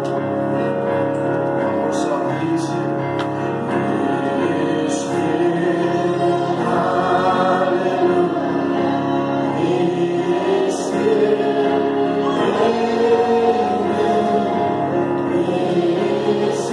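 A congregation singing a worship song together, many voices in unison over sustained chords.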